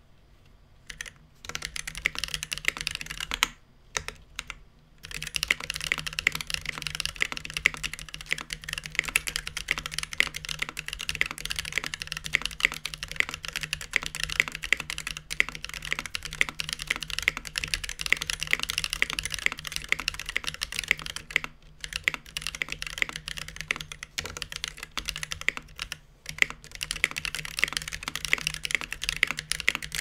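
Fast typing on a KBD8X MKII aluminium keyboard with lubed Drop Holy Panda tactile switches and GMK Coral keycaps, in a case with no sound dampening. It is a dense stream of keystrokes starting about a second in, with brief pauses a few seconds in and near the two-thirds mark.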